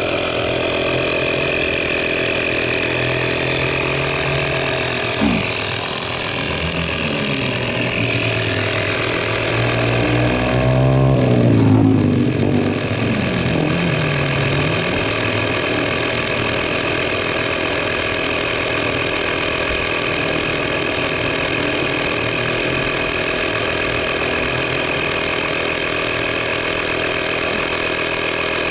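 Auto XS digital tyre inflator's compressor running steadily, pumping a car tyre up toward its preset 35 psi. About ten to fifteen seconds in, another sound briefly swells, falling and then rising in pitch.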